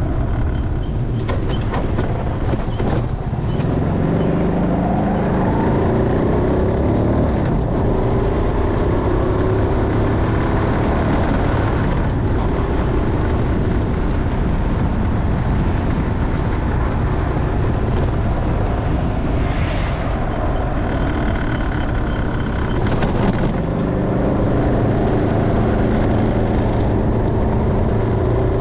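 Motorcycle engine running on the move, its pitch rising as it accelerates about four seconds in and again near the end, over a steady low rush of noise.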